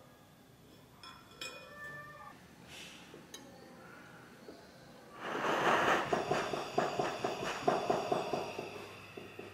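A few light clicks of the silver ring being set in place. Then, about five seconds in, a jeweller's soldering torch flame starts, a loud fluttering rush that heats the silver ring for soldering and eases off near the end.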